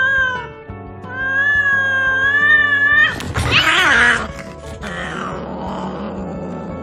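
Two cats in a standoff: a long wavering yowl, then a second long yowl rising slightly in pitch, breaking about three seconds in into a short burst of screeching and hissing as they fight, which then fades.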